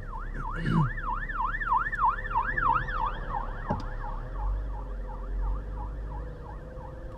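Fire engine siren in a fast yelp, rising and falling about two and a half times a second, heard from inside a car cabin. It is loudest over the first three seconds and then grows fainter, over the car's low engine and road hum.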